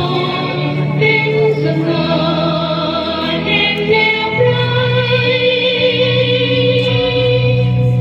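Several voices singing together over musical accompaniment, holding long drawn-out notes above a steady low drone.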